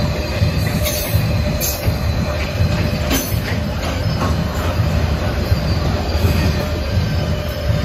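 Potash covered hopper cars of a freight train rolling past close by: a steady low rumble of steel wheels on rail with a thin wheel squeal over it and a few sharp clicks.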